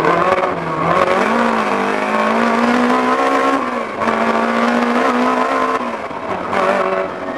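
BMW M3 E30 Group A rally car's four-cylinder engine running hard at high revs, heard from inside the cabin. Its pitch climbs about a second in, holds, then dips briefly around four seconds and again near six before rising again.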